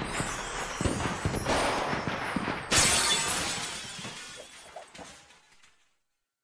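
The song's closing bars: a string of loud hissy crashes, the last and loudest about three seconds in, ringing away to silence before the end.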